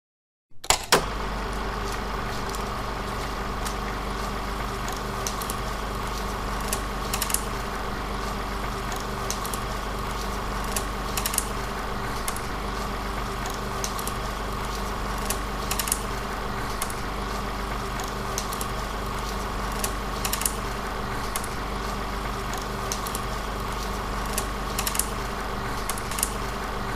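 An old-film sound effect: a steady machine-like whirr and hum with scattered crackles and pops. It starts with a sharp click about a second in.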